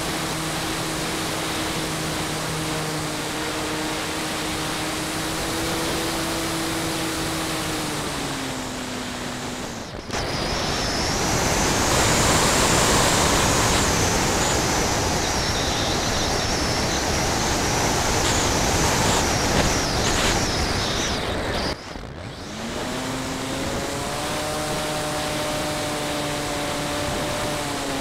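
A radio-controlled model airplane's propeller drone, heard from on board, drops in pitch as the throttle comes back. About ten seconds in it gives way to a louder rush of air with a high whistle over it. Near the end the propeller drone returns and rises in pitch.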